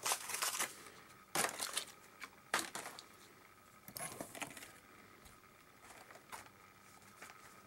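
Scattered light clicks and rattles of small die-cast toy cars and plastic being handled and set down, at irregular moments with quiet between them.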